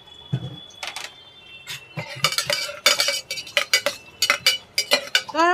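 Steel spatula stirring chopped onions in ghee inside a pressure cooker, scraping and clinking against the metal pot in a quick run of knocks with a ringing edge.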